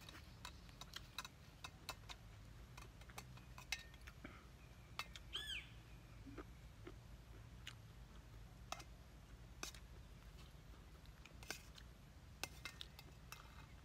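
Faint clicks and scrapes of a spoon in a bowl as rice is mixed. One short bird call about five seconds in.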